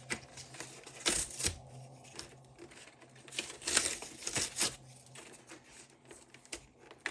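Tight plastic packaging being torn and crinkled as a sealed socket-set case is worked open, in bursts about a second in and again from about three to five seconds in, with a couple of sharp clicks near the end.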